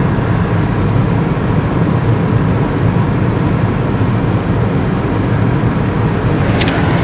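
Steady road noise inside a moving car's cabin, with a brief click near the end.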